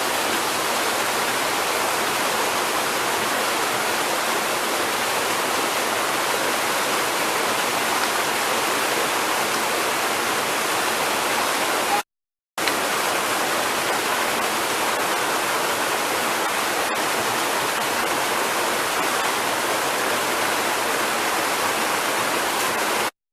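Mountain waterfall, swollen with snowmelt, pouring with a steady rush of water. The sound drops out briefly about halfway and stops just before the end.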